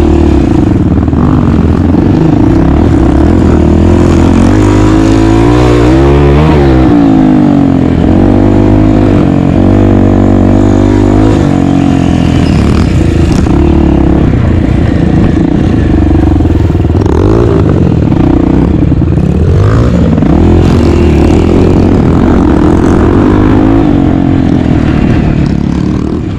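250 cc dirt bike engine being ridden hard, the revs rising and falling again and again as the throttle is opened and closed.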